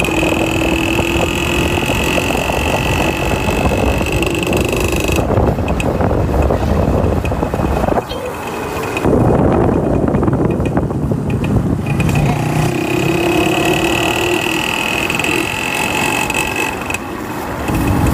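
A bike's motor running as it is ridden, with a steady high whine for the first five seconds or so and again later on. For a few seconds in the middle, wind rushes over the microphone.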